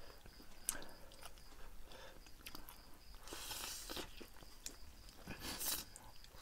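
Close-miked eating of spicy instant noodles: chewing with short clicks, and two long hissing slurps of noodles, one about three seconds in and another near the end.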